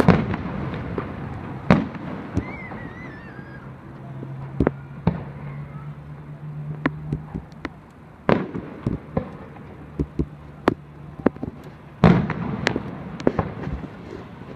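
Fireworks display: loud bangs of aerial shells bursting every few seconds, with the loudest near the start and about twelve seconds in, and scattered smaller pops and crackles between them. A brief warbling whistle is heard about two and a half seconds in.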